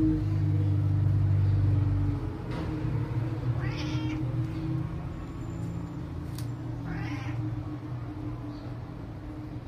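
Cat meowing, two short meows about three seconds apart, with a low steady rumble underneath that drops away about two seconds in.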